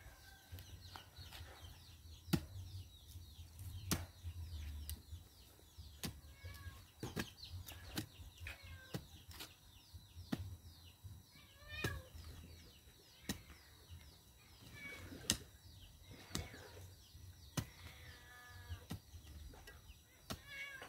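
Iron digging bar striking into hard soil around a shrub's roots, a sharp strike every second or so, as the bougainvillea is dug out with its root ball. Chickens cluck faintly in the background.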